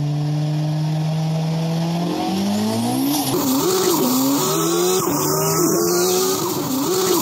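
Race car engines running at speed, a steady drone at first, then from about three seconds in the pitch swings up and down again and again as the cars lap the oval at speed.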